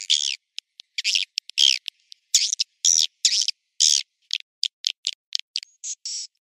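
Swiftlet lure call: rapid, high twittering chirps of edible-nest swiftlets, coming in short clusters with clean silent gaps between them. This is the call played at swiftlet houses to draw the birds in.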